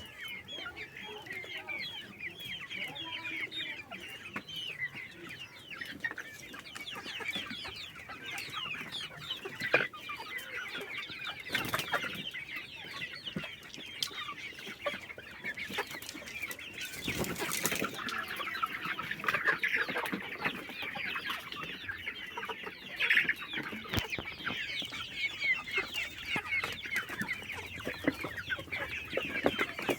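A flock of Kadaknath chickens clucking and calling without a break, many short overlapping calls, with a few brief knocks partway through.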